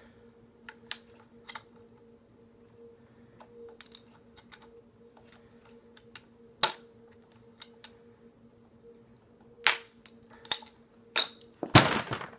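Ratchet PVC pipe cutter clicking irregularly as its handles are squeezed slowly through polyethylene tubing, with a few louder clacks in the last few seconds and a loud clatter near the end as the cut goes through.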